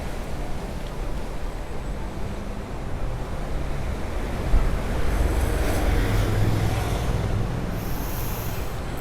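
Wind buffeting the microphone over the wash of sea surf, with a low hum swelling about five seconds in.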